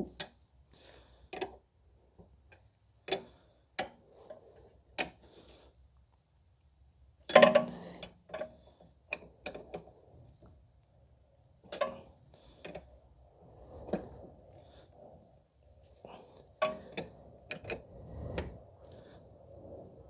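Scattered sharp clicks and knocks of tools on metal, roughly one a second, with one louder ringing clank about seven seconds in, as a brake hose is tightened onto a new rear brake caliper.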